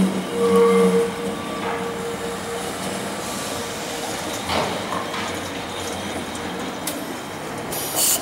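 Historic Carris tram number 571 running on street rails through a curve: a steel wheel squeal for the first second and a half, then a steady rumble of wheels on track as it comes closer. A short sharp noise sounds near the end.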